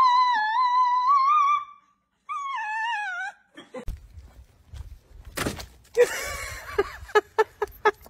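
A pet howling along in a long, wavering high note, then a shorter falling howl. After a sudden change, a rush of noise and a quick run of sharp clicks, about four a second.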